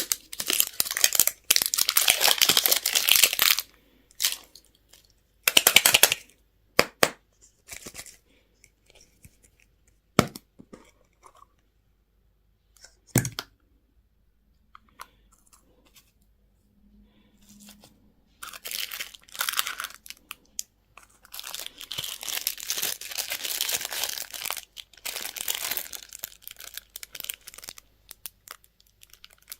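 Candy wrappers and packaging being torn open and crinkled in bursts, with a few sharp clicks and a quiet pause in the middle.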